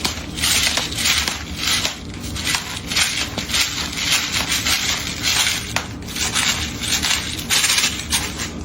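Pepper mill grinding pepper, a rapid crunchy rasping made of many strokes that goes on for several seconds.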